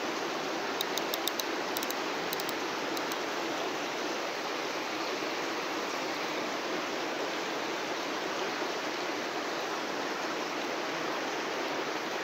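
Steady, even rushing noise, with a few faint high clicks in the first three seconds.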